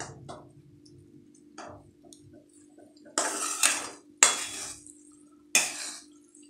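Metal spatula scraping and stirring dry spinach sabzi in an aluminium kadhai. A few light clicks come first, then three loud scrapes against the pan in the second half, over a faint steady hum.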